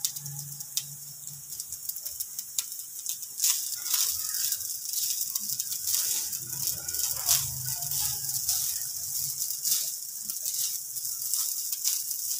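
Wooden spatula stirring and scraping cooked rice in a nonstick frying pan: a run of quick scrapes and light taps that gets going a few seconds in.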